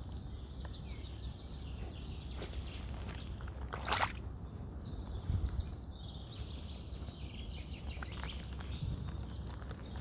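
Mud-caked trainers squelching in wet, sloppy mud as the wearer steps and shifts their feet, with one louder squelch about four seconds in and a few softer ones. Birds call faintly in the background.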